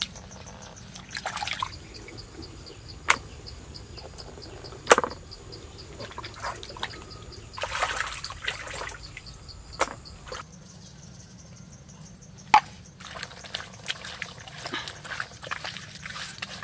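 Wet, skinned frogs being handled and rinsed by hand in a concrete basin: irregular squelches and splashes of water, a few sharp slaps or knocks, and a busy run of small wet crackling sounds near the end. Crickets chirp steadily in the background through the first part.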